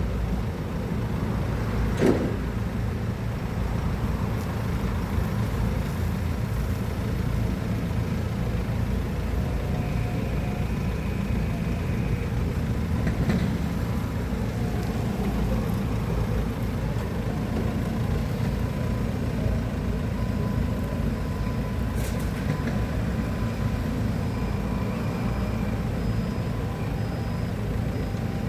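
Heavy-equipment engine running steadily under load, with a sharp knock about two seconds in and another near the end.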